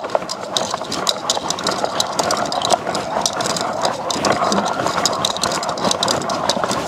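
A toy slime mixer from a slime kit, turned fast by hand, making a steady whirring rattle with rapid clicking as it churns the slime.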